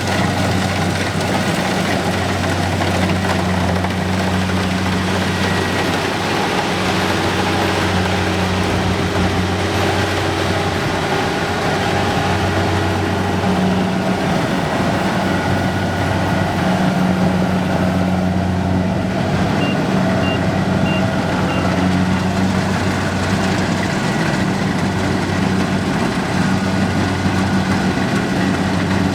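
A heavy engine running steadily at constant speed, a continuous low drone with no change in pitch.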